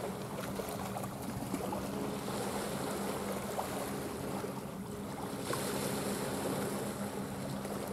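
Steady low drone of a boat engine offshore, holding one even pitch, over a hiss of wind and small waves on the shore.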